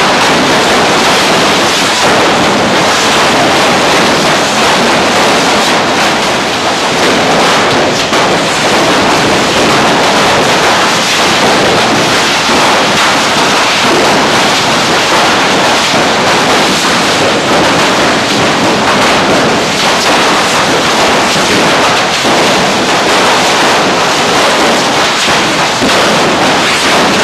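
Several hand-held pole fireworks (Bocairent's traditional canyes) spewing sparks at close range: a loud, continuous, dense hiss that never lets up.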